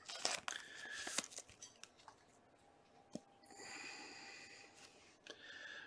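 Trading cards handled by hand: a few light clicks and taps in the first second, then the soft scrape of cards sliding against each other, twice.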